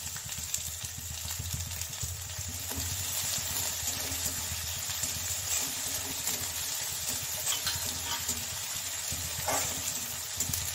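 Chopped onion frying in mustard oil in a steel kadhai, a steady sizzle, with a few metal scrapes of a spatula stirring it against the pan.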